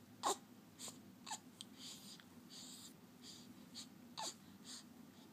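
A three-week-old baby's faint, brief vocal sounds: three small grunts or coos, one near the start, one about a second in and one about four seconds in, with quiet breathing between.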